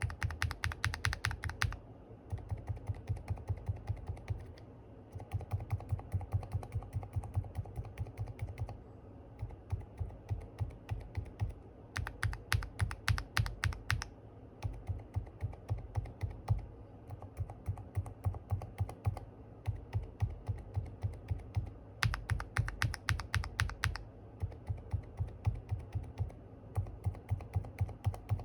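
Rapid repeated key presses on a low-profile mechanical keyboard fitted with Kailh low-profile switches: silent tactile Deep Sea Whale, silent linear Hades and linear Specter. The presses come in runs of about two seconds at around six a second. About every ten seconds a run sounds sharper and brighter than the muted, thocky runs around it.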